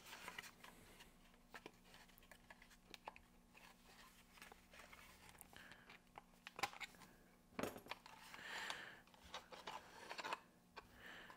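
Faint, scattered clicks and light knocks of small parts being handled: a 3D-printed AC vent duct and its diverter-door linkage being turned around and refitted, over a faint steady hum.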